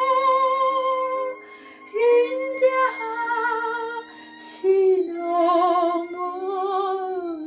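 A woman sings the closing phrase of a slow Korean hymn to the Virgin Mary over soft, sustained instrumental accompaniment. The phrase ends on a long note with vibrato that slides down near the end.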